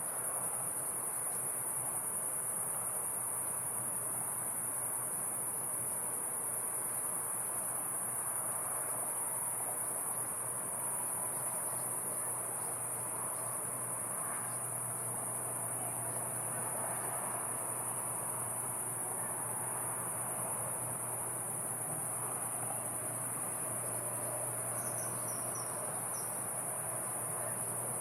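Crickets chirring in one continuous high-pitched drone, over a softer steady rush of river water. A few short high chirps come near the end.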